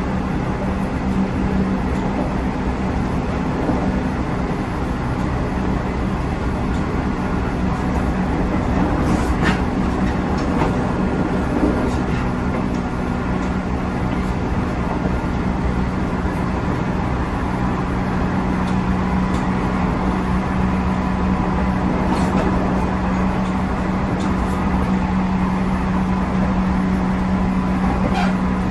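Cabin running noise of a JR 311 series electric multiple unit under way: a steady rumble with a constant low hum, a high tone that comes and goes midway, and a few short clicks.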